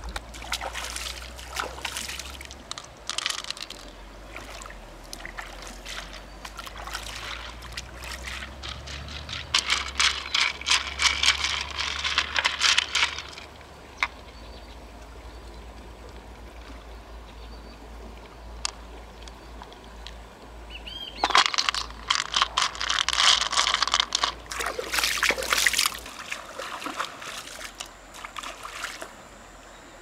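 Water splashing and trickling in a shallow river, coming in two busy stretches of rapid small splashes and clicks, with a faint steady stream between them.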